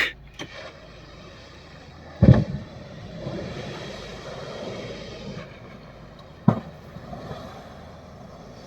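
Steady running noise of a yacht under motor, with a sharp thump about two seconds in and another near six and a half seconds.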